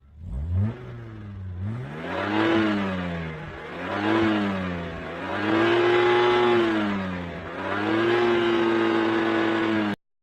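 An engine revving up and down about four times, its pitch climbing and falling, the last two revs held high for a second or two; it cuts off suddenly near the end.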